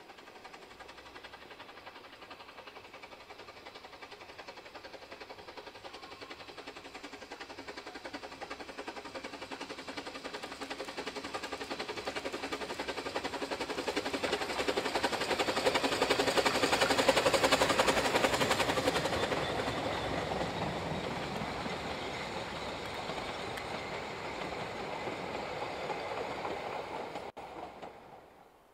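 Narrow-gauge steam locomotive hauling a train past, with rapid exhaust beats and wheels running on the rails. It grows louder as it approaches, is loudest a little past the middle, then fades as it moves away, and cuts off suddenly near the end.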